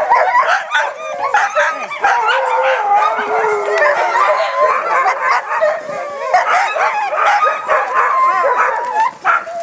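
A yard of huskies screaming together: many dogs' high, wavering cries overlapping in one unbroken din.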